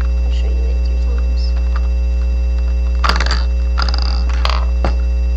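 Steady low electrical mains hum with a ladder of overtones. About three seconds in, a few short rattling, scraping noises come over it.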